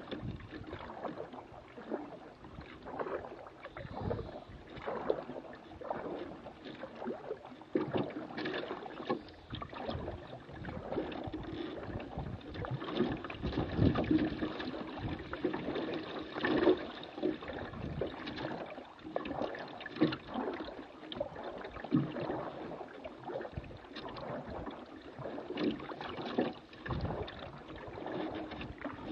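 Water lapping and splashing at the bow of a small boat moving slowly along a river, with irregular knocks and splashes.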